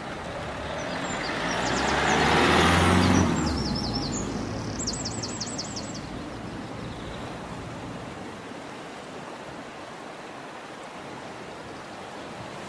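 A road vehicle drives past, its engine and tyre noise rising to a peak about two to three seconds in and then fading away, over the steady rush of the river. A small bird sings a quick run of high notes in the middle.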